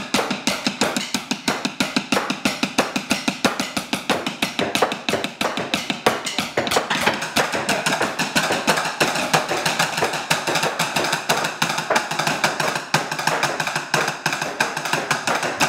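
Drumsticks drummed on a tabletop in a fast, steady run of sharp strokes, many to the second.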